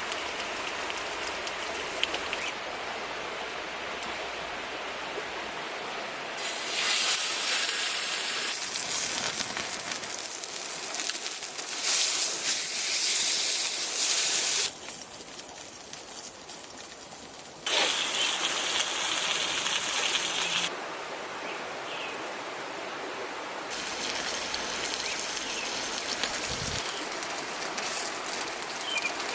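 Pork belly sizzling on a grill over a wood campfire. The sizzle is loud in three stretches of a few seconds each, starting and stopping abruptly, with a quieter hiss and crackle between them. A few faint bird chirps come near the end.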